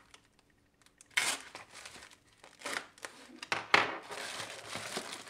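Foam packing sheet crinkling and rustling as it is unrolled by hand, in several sharp rustles after a quiet first second, then steadier rustling.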